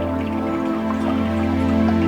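Calm new-age background music with sustained chords and faint, light plinking notes.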